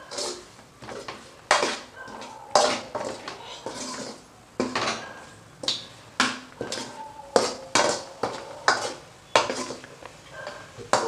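Steel spoon scraping and clinking against a metal kadai while stirring baby corn through a thick, dry onion-spice masala, in repeated strokes about once a second, quickening near the end.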